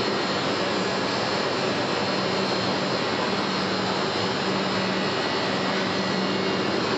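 Steady industrial noise of a wheel forging plant's machinery: an even rushing sound with a low steady hum running through it, unchanging throughout.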